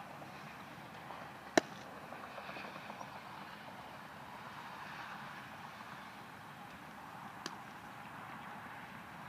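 A baseball popping into a leather glove once, sharply, about a second and a half in, as a long throw is caught. A fainter snap comes later, over a steady outdoor hiss.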